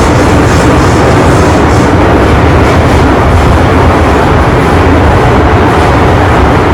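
MTR Island Line M-Train electric metro train running at speed, a loud steady rumble of wheels on rail heard from inside the carriage.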